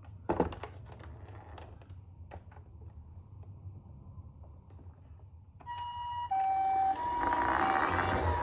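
Toy ambulance minicar's electronic two-tone siren, switching back and forth between a high and a low note like a Japanese ambulance's "pee-po", starting a little over two-thirds of the way through. It follows a few sharp plastic clicks and taps, and a rushing noise builds under the siren in the last second or so.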